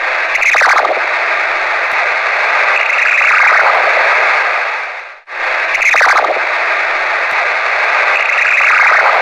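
Yaesu FT-817 receiver audio on the 10-metre ham band in single-sideband: a steady rush of band noise that briefly drops out twice, about five seconds apart, each time followed by a quick falling swoosh. These are the so-called "Martian sounds", which the operator wonders may be atmospheric or solar-flux related.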